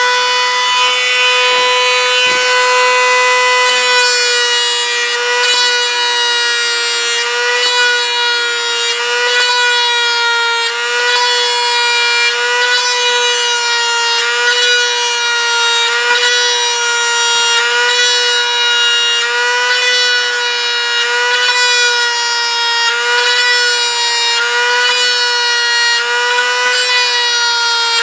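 Dremel rotary tool spinning a brass tube, a steady high whine that wavers slightly in pitch, with a light rubbing as the tube's end is pressed into the jet's skin to cut rivet marks.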